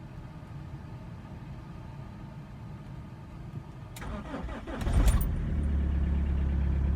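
BMW E46's M47 2.0-litre four-cylinder diesel cold-started below freezing: a low steady hum, then the starter cranks briefly about four seconds in, the engine catches just before five seconds and settles into a steady idle. It starts quite fine after a leaking injector was replaced.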